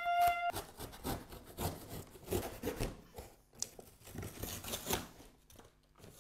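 Corrugated cardboard being ripped and torn apart by hand, in irregular tearing and scraping strokes. A held, high-pitched vocal cry ends about half a second in.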